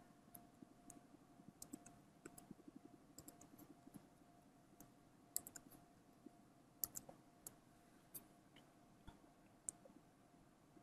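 Faint, scattered computer keyboard keystrokes, irregular and a few at a time, over a faint steady hum.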